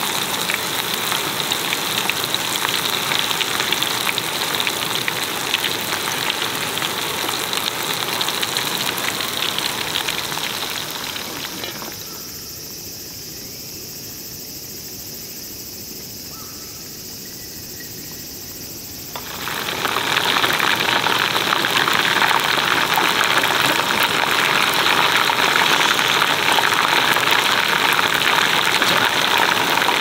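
Hot oil sizzling and crackling steadily as battered meat deep-fries in an aluminium mess tin. About twelve seconds in, the sizzle falls away to a quiet background for some seven seconds, then comes back louder.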